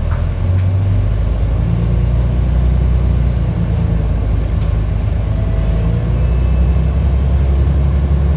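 Volvo B10TL double-decker bus's diesel engine heard from inside the lower deck, a steady low drone that grows a little louder shortly after the start as the bus pulls away and gathers speed.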